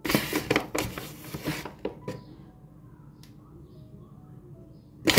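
Flour poured from its bag into a storage container, with bag rustling and light scraping. It is busiest over the first couple of seconds and again right at the end, with quieter handling in between.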